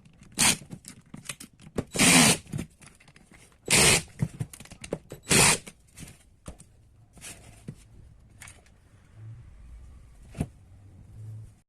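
Four short, loud hissing bursts, about a second and a half apart, among small clicks and scrapes of parts being handled on the bench.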